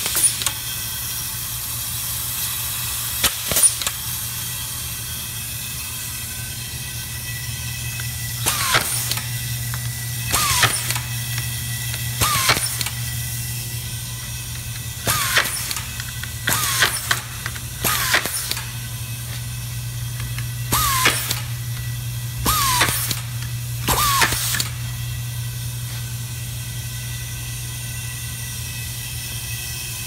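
Automatic screw feeding and screwdriving machine running with a steady hum, driving screws: about nine short bursts, each with a brief falling whine, come roughly every one and a half to three seconds through the middle of the stretch, after two sharp clicks near the start.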